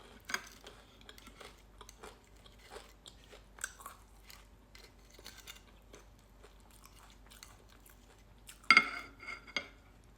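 A person chewing crunchy food close to the microphone, soft irregular crunches and bites, with one sharper, louder brief knock near the end.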